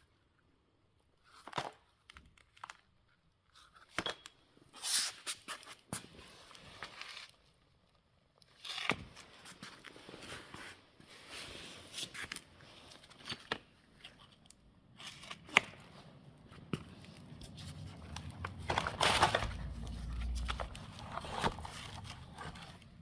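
Handling noises: scattered clicks, knocks and rustling, with a louder, denser stretch and a low rumble a few seconds before the end.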